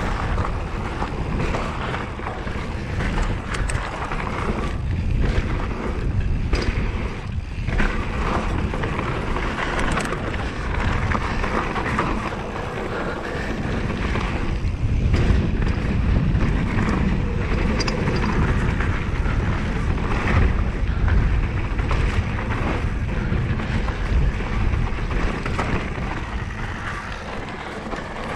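Mountain bike ridden along a dirt trail: wind buffeting the microphone and tyres rolling over the ground, with frequent rattles and knocks from bumps.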